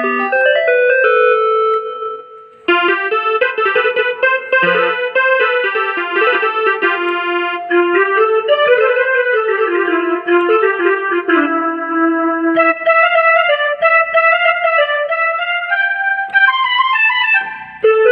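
Rockster RS41IN mini electronic keyboard playing a melody on a built-in tone, with a short break about two and a half seconds in.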